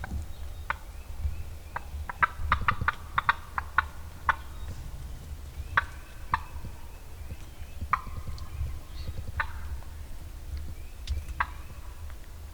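Wild turkeys calling: a fast run of short, sharp notes about two to four seconds in, and single notes scattered through the rest, typical of gobbling and clucking toms.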